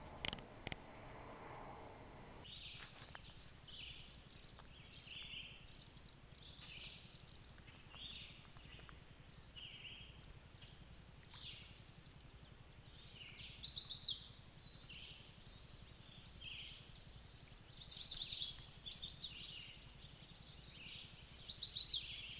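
Songbirds calling in a wooded marsh: short high chirps about once a second, and three times a loud, rapid trill of quick downward-sweeping notes, about 13, 18 and 21 seconds in. A sharp click at the very start.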